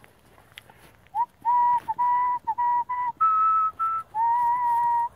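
A person whistling a short run of about eight notes, starting about a second in: several short notes on one pitch, two a little higher, then a longer held note at the end.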